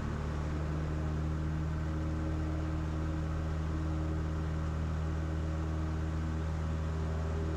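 Cessna 172 Skyhawk's piston engine and propeller at full power, a steady drone, during the takeoff roll of a touch-and-go.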